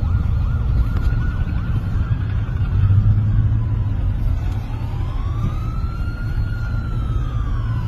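Emergency vehicle siren: a fast warble that ends a little after two seconds in, then a long wail that rises and falls from about four seconds in. Under it runs the steady low rumble of a car's cabin.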